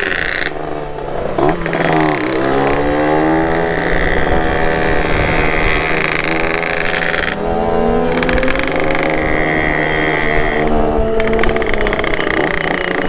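Yamaha RX King two-stroke motorcycle engine being ridden hard, its pitch rising as it accelerates, dipping briefly about seven seconds in, then rising again. Rush of wind over the microphone throughout.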